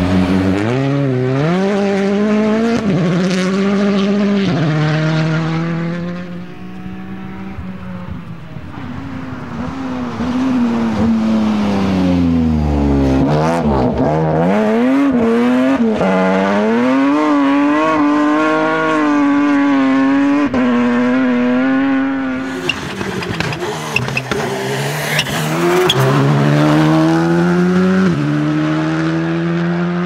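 Rally car engines at full throttle, revving hard and shifting up through the gears; the revs rise and fall through the middle as a car works through a section, and near the end another hard acceleration with quick upshifts.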